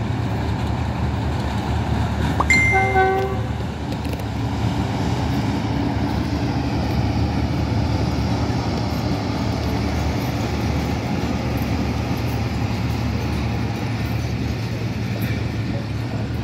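Old Pakistan Railways PHA-class Hitachi diesel-electric locomotive running past at low speed with a steady low engine rumble, giving one short horn blast about two and a half seconds in. Near the end its coaches roll by.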